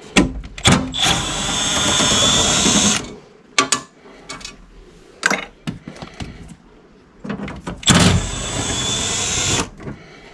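Handheld power drill running twice, about two seconds each time, near the start and again about eight seconds in, backing out fasteners while the stock air intake box comes out. Short knocks and clatter from handling parts fall in between.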